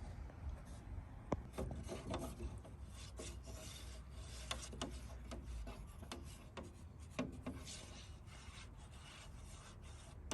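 Irregular scraping and rubbing with scattered light clicks and knocks as top coat paint is measured and mixed in a paint measuring cup.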